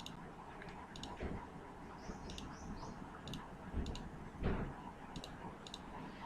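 Computer mouse clicks, sharp and scattered about once a second, with a dull thump about four and a half seconds in.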